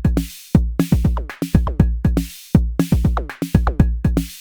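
Arturia DrumBrute Impact analog drum machine playing a looping beat: a deep kick and sharp upper hits, with FM drum hits that sweep quickly down in pitch because Color is on and gives the FM drum its pitch envelope.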